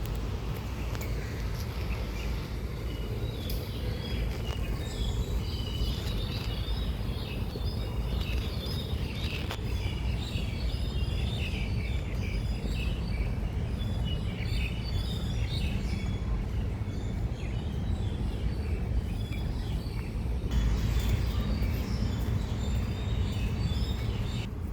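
Many small birds chirping and twittering over a steady low outdoor rumble.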